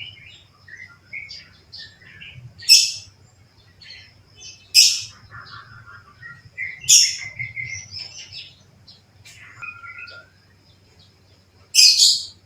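Yellow-vented bulbul (trucukan) singing: bubbling, warbled phrases broken by four loud, sharp high notes about two seconds apart. A faint steady low hum runs underneath.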